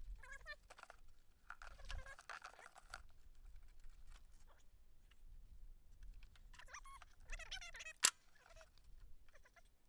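Quiet handling noises of hands and tools working on the mower's fuel line and filter, with a single sharp click about eight seconds in.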